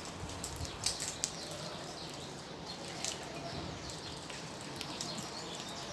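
Small birds chirping faintly and sporadically, short high-pitched calls over a low background hiss, with a few soft clicks about a second in.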